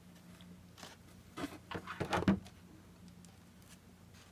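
Gloved hands rummaging in a cardboard box: light rustling and a few soft clicks and knocks of packaged items being handled, in a cluster between about one and two and a half seconds in, over a faint steady hum.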